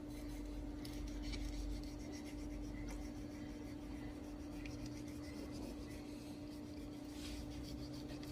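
A knife scraping and slicing through ribbonfish on a cutting board, in slow rubbing strokes, over a steady low hum.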